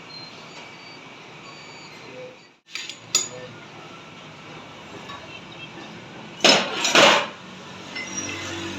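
Metal clinking and knocking: a light clink about three seconds in, then two loud metal knocks about half a second apart past the six-second mark, over a steady background hiss.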